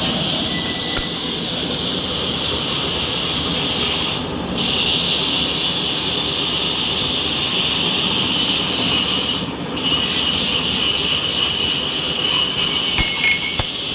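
Belt-driven iron worker (steel shearing and punching machine) running, a steady mechanical whir with a hiss and a high whine from its motor and drive. The noise dips briefly twice, and a small knock sounds near the end.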